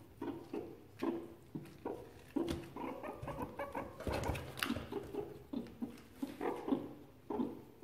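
Meerkats giving short, repeated peeping calls, a few a second. About halfway through there is a burst of plastic crinkling.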